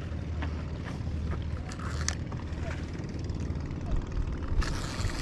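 A low, steady engine hum, with a few faint clicks and a brief rush of hiss about four and a half seconds in.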